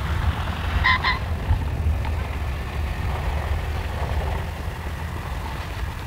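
Steady low rumble of wind on the microphone, with a short pitched double tone about a second in.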